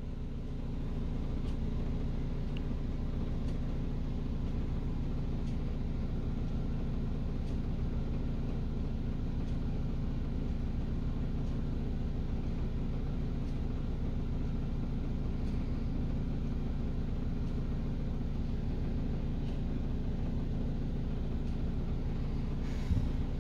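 Over-the-range hood fan running: a steady low droning hum and rumble of vibration carried through the wall. A short knock comes near the end.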